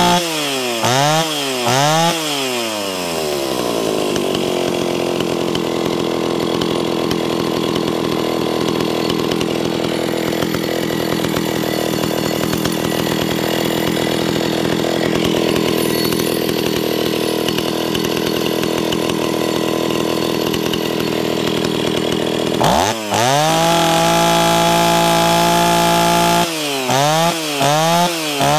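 Stihl 041 Farm Boss two-stroke chainsaw revved in two quick blips, then settling to a steady idle for about twenty seconds. Near the end it is run up to full throttle and held for a few seconds, then blipped several times.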